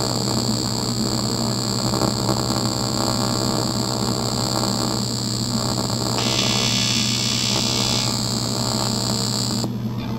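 AC TIG welding arc on 6061 aluminium, buzzing steadily as a bead is run to fill a drilled hole, then cutting off near the end as the arc is broken.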